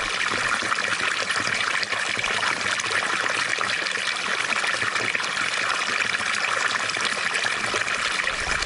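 Water fountain running: a steady splashing trickle of falling water.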